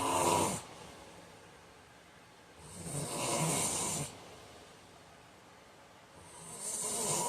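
A man snoring in his sleep: three long, buzzing snores, each about a second and a half, coming about every three and a half seconds. The first ends about half a second in and the last starts near the end.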